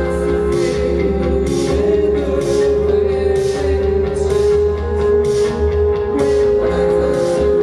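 A band playing live: sustained held chords over a heavy bass, with a regular beat of cymbal hits.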